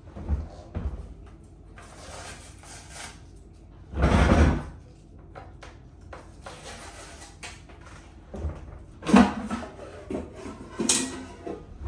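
Handling noises from unboxing an air fryer: a series of knocks and thumps with rustling in between, as parts of the appliance and its packaging are lifted, moved and set down. The loudest is a longer burst about four seconds in, with a cluster of knocks near the end.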